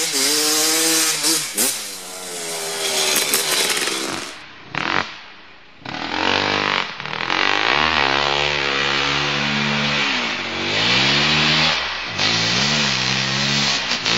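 2003 Kawasaki KX250 two-stroke dirt bike engine, fitted with an FMF Gnarly pipe and Pro Circuit 304 shorty silencer, revving hard under load. The pitch climbs and drops back again and again with throttle and gear changes. The engine fades briefly about five seconds in, then grows louder as the bike comes back on throttle toward the listener.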